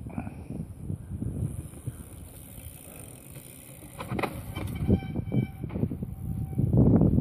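Mountain bikes riding over a bare rock slab, tyres rolling on the stone, with gusts of wind rumbling on the phone's microphone, loudest near the end.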